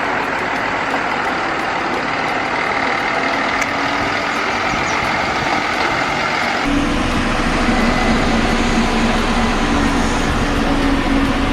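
Cement mixer truck engine running steadily. About two-thirds of the way through, the sound changes to a heavier low rumble with a steady hum.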